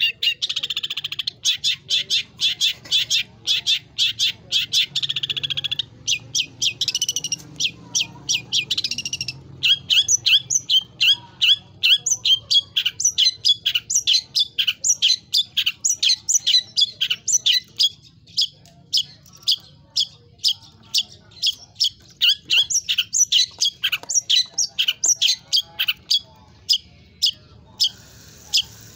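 Long-tailed shrike singing. It opens with a rapid, buzzy chatter for the first few seconds, then runs into a long series of short, sharp, repeated notes, about three a second, which grow sparser toward the end.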